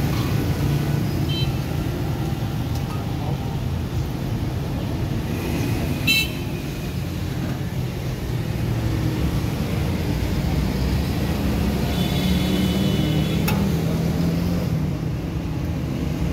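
Busy road traffic: a steady rumble of engines with vehicle horns tooting now and then, the longest toot about twelve seconds in.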